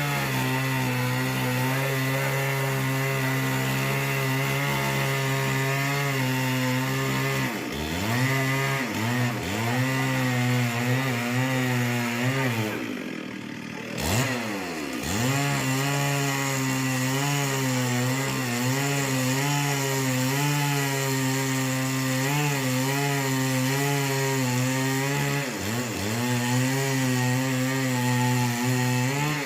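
Chainsaw running at high revs as it cuts a coconut palm trunk. Its pitch dips a few times, and about halfway through it drops briefly toward idle before revving back up.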